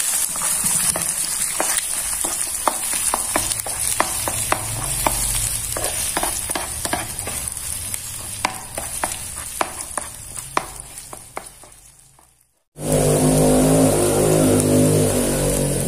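Egg sizzling in hot oil in a nonstick frying pan while a wooden spatula scrapes and taps against the pan, breaking it up into scrambled egg. The sizzle fades out, cuts off briefly near the end, then comes back louder with a low hum underneath.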